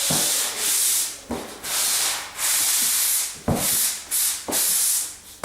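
Abrasive sanding of dried joint compound in an internal drywall corner: about six separate rasping strokes, each under a second long, with short pauses and a light knock as some strokes begin.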